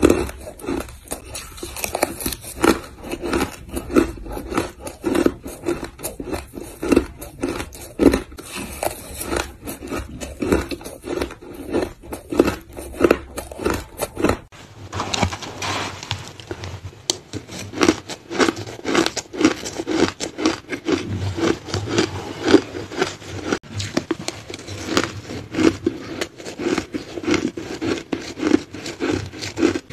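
Close-miked crunching and chewing of mouthfuls of crushed ice, a dense run of sharp crunches throughout. About halfway through, the background tone changes abruptly where a second recording begins.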